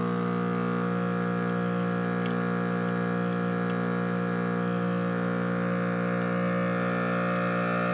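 Analog synthesizer oscillator holding one steady low, buzzy note through a breadboarded Steiner-type voltage-controlled filter, with many harmonics. The amplifier is clipping the waveform slightly, making it sound harsher than intended.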